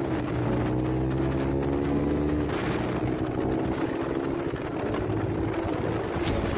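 Dayang Runner 200cc motorcycle engine through an aftermarket exhaust, rising in pitch under acceleration for about two and a half seconds, then dropping in pitch and running on at steadier revs.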